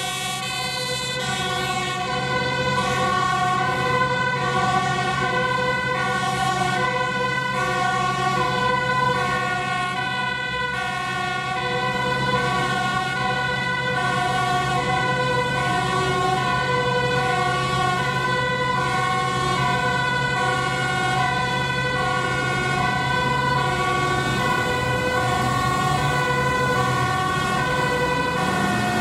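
Dutch fire engine's two-tone siren sounding continuously, stepping back and forth between a high and a low note about once a second. A steady low hum lies beneath it and starts to rise near the end.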